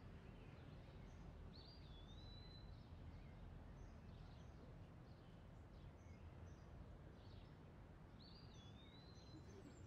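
Faint outdoor ambience: a low steady background hum with scattered small bird chirps. One bird gives the same call twice, a short dipping note that levels into a held whistle lasting about a second, once early and once near the end.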